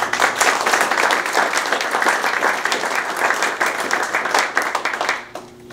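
Small audience applauding, a dense patter of many hands clapping that dies away near the end.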